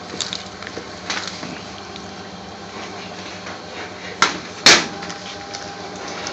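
Chopped salad being mixed in a bowl: soft rustling and light clicks. About four seconds in come two sharp knocks, half a second apart, the second the louder.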